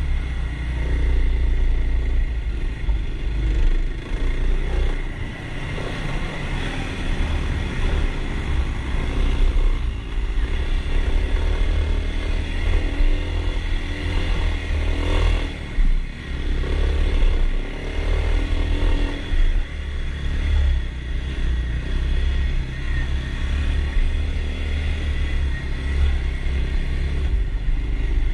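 Kawasaki KLX dirt bike's single-cylinder four-stroke engine running along a trail, heard from on the bike, its note rising and falling as the throttle opens and closes.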